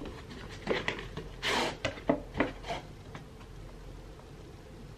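Handling of a parcel's packaging: a few short rustles and light knocks in the first three seconds, the loudest about a second and a half in, then faint room tone.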